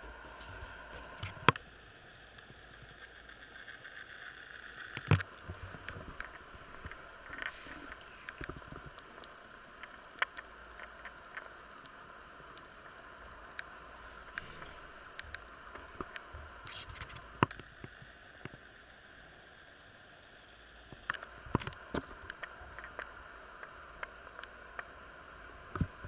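Quiet kitchen room tone: a steady faint hum with a few scattered sharp clicks and knocks.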